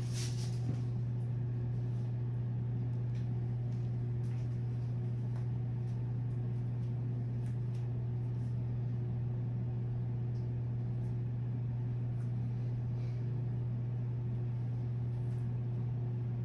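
Steady low hum at an even level, with faint small clicks now and then.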